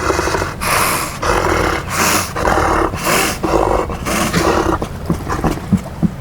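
Two fur seals fighting, giving a rapid series of harsh, growling barks about twice a second, which stop about five seconds in. Wind and surf noise remain behind them.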